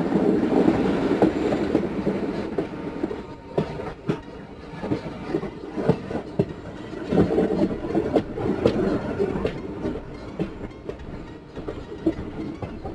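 Passenger train running along the track: a steady rumble of the coaches with irregular clicks and clacks of the wheels over rail joints.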